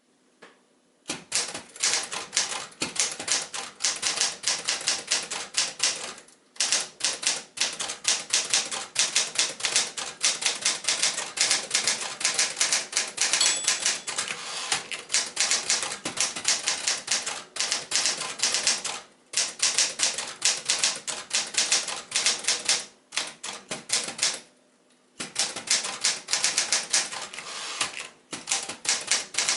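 1965 Sears Forecast 12 manual typewriter, mechanically a Smith-Corona Galaxie, being typed on: fast runs of type bars striking the platen, with a few short pauses between runs.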